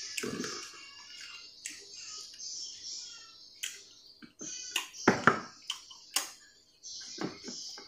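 Close-up mukbang eating sounds: a person eating rice and boiled cassava leaves by hand, with wet chewing and a string of short mouth clicks and lip smacks, the loudest about five seconds in.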